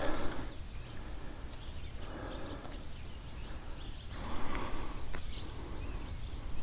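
Steady high-pitched drone of insects calling, with a few soft rustles and faint ticks now and then.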